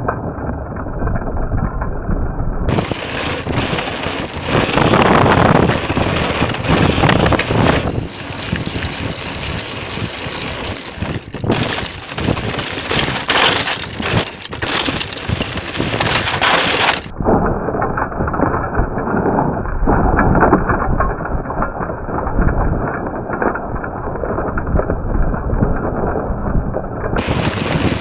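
Mountain bike rolling downhill over brick-paved streets and a dirt lane: steady wind on the microphone with the rattle and rumble of tyres and frame over the bumps. The sound changes abruptly a few times where separate clips are cut together.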